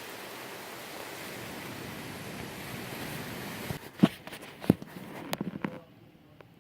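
Steady rushing noise of gusty wind and rain, which cuts off about three and a half seconds in. A few sharp knocks follow, then it goes much quieter.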